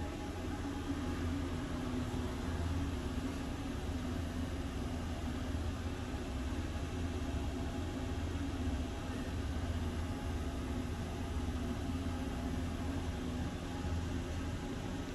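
Steady rumble and low hum inside the VPM RBDe 4/4 I 222 electric railcar, heard in the door vestibule.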